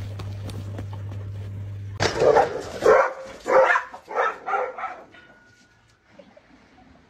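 A dog barking in a quick series of about six loud barks, preceded by a steady low hum.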